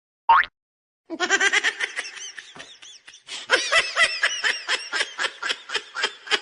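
High-pitched laughter in a long run of short rapid bursts, about five a second, after a single short rising squeak about a quarter of a second in.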